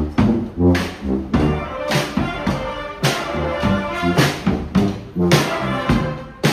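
Street brass band playing a tune: horns sounding pitched notes over a steady drum beat of about two strikes a second.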